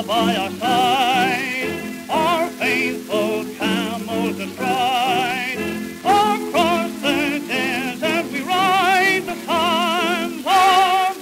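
A 1930s dance orchestra record playing. The melody is carried with a wide, wavering vibrato and scooped note attacks over sustained chords.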